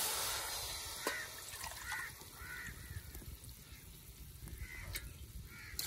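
Water poured from a steel jug, fading out within the first second, then a quieter stretch with a single click and several short bird calls in two groups.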